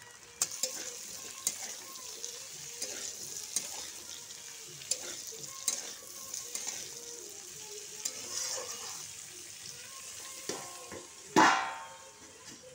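Diced potatoes frying in hot mustard oil in a kadhai, sizzling steadily while a steel spatula stirs and scrapes them with many light clicks. Near the end, one loud ringing metal clank.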